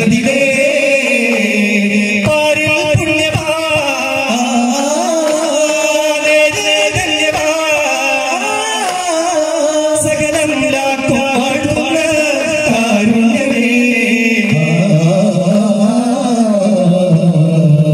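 Daff muttu: a voice singing a chant-like song through a PA, with daf frame drums struck in rhythm underneath.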